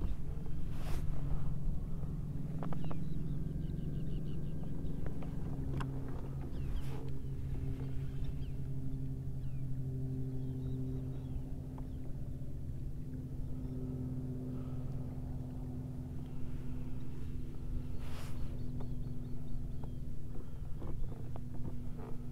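A steady low motor hum, holding one pitch with slight changes in level, with a few short knocks and clicks over it.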